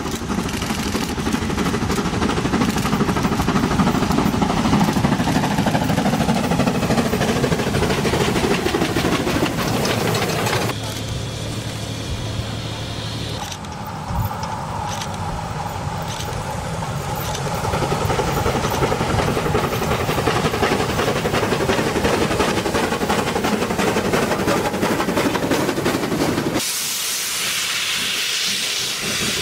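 Steam train running along the line, the locomotive and wheels on the rails heard in several takes. About three seconds before the end a steady hiss takes over: steam blowing from low at the front of the locomotive, near the cylinders.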